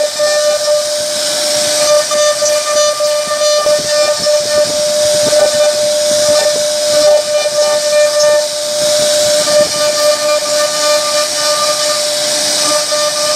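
CNC router spindle running with a steady high whine while its bit cuts into a solid wood door panel, the cutting adding a continuous hiss.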